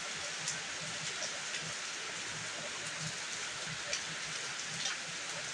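Steady rain hiss, with a few faint ticks scattered through it.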